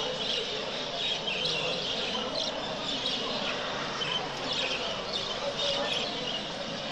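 Many exhibition budgerigars chirping and chattering together, with frequent short, high chirps over a steady background of bird chatter.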